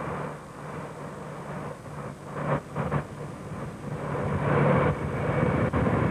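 Engine and road noise of the vehicle carrying the camera, driving alongside a racing cyclist, with a couple of short bursts a few seconds in; the noise grows louder over the last third.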